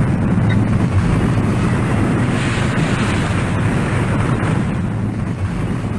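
Wind buffeting the microphone: a loud, rough low rumble with a hiss above it, and no siren sounding.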